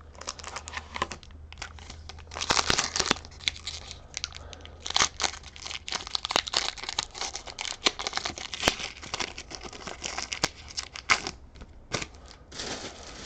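Foil wrapper of a Pokémon TCG booster pack being torn open and crinkled, with cards rustling and clicking as they are handled.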